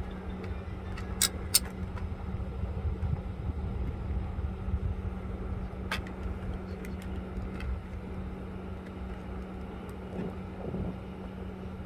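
Steady low rumble with a constant hum, crossed by a few sharp clicks: two about a second and a half in, and one about six seconds in.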